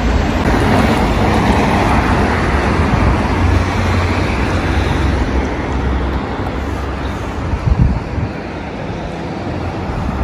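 Road traffic running along a street, an even rush of passing cars over a low rumble. It is loudest in the first few seconds and eases off after about six seconds, with a couple of short knocks near the end.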